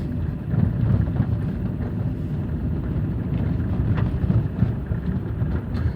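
A Chevrolet Aveo driving over a rough, potholed road: steady engine and road rumble with a few faint knocks.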